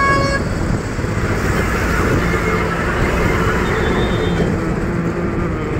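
Steady engine and road rumble of a moving auto-rickshaw in traffic, with the tail of a horn toot at the very start.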